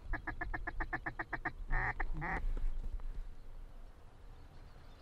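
Mallard-type quacking: a fast, even run of about a dozen short quacks over a second and a half, then two longer quacks.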